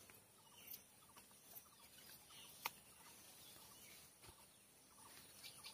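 Near silence: faint outdoor background with a few soft, scattered chirps and a single sharp click about halfway through.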